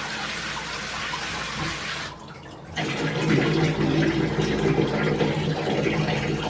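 Shower running behind a closed curtain, a steady spray of water. About two seconds in the hiss dips for under a second, then comes back fuller and lower.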